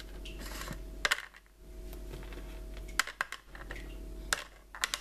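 Unsalted peanuts dropping into a paper bowl: a handful of sharp ticks at uneven intervals.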